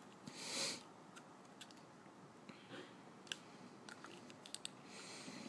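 Small plastic clicks and light scrapes as a syringe tip is worked into the neck of a plastic e-liquid dropper bottle to draw up thick juice, with a short hiss about half a second in.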